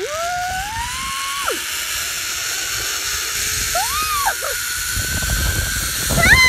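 Zip-line trolley running along the cable with a steady whir, wind rushing over the microphone, and a woman's rising, drawn-out whooping cries near the start, about four seconds in and near the end.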